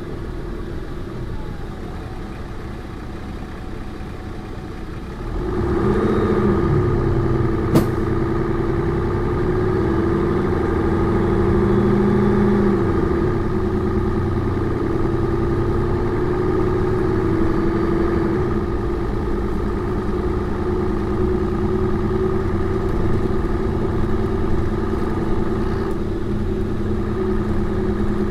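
Mercedes-Benz O405N2 bus's diesel engine running, quieter for the first five seconds, then louder as it comes under load, with a single sharp click just under eight seconds in. The engine note climbs a little and settles, then holds steady.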